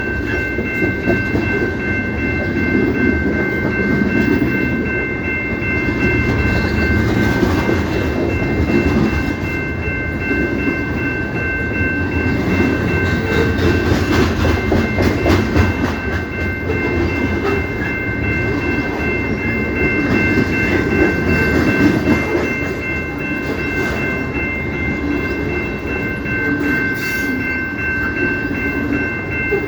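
A CP Rail train rolling past: a steady low rumble of wheels on the rails, with a steady high ringing of three tones held over it.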